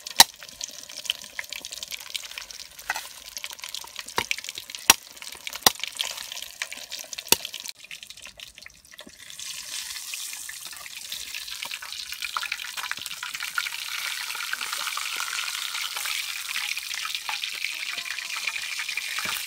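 Knife chopping on a wooden cutting board, a handful of sharp strikes at uneven intervals. Then, about nine seconds in, a whole fish frying in hot oil in a wok, a steady sizzle that grows a little louder.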